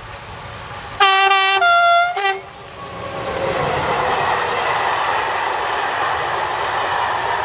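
Locomotive horn sounding a two-tone blast, a higher note then a lower one, ending with a brief return to the high note. It is followed by the rushing, clattering noise of a passing train, building up and then running steadily.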